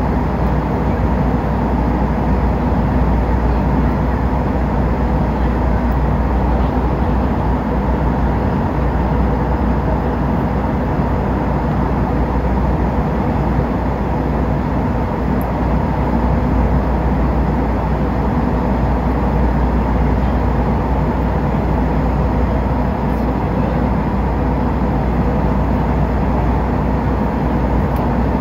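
Airliner cabin noise in cruise: a steady, even rush of engines and airflow heard from inside the cabin, heaviest in the low end, with a faint steady hum.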